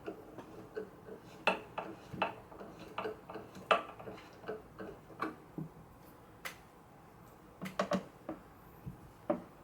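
Irregular light clicks and taps from handling an archtop guitar and its spring-mounted neck, a few to the second, with slightly louder knocks here and there.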